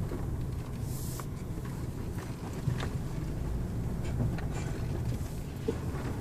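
A vehicle's steady low rumble as it drives, with scattered small knocks and rattles and a brief hiss about a second in.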